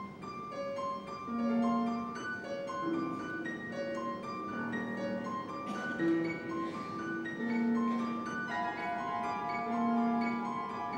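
Orchestra of a modern opera playing a sparse instrumental passage: short held notes scattered high and low, without singing.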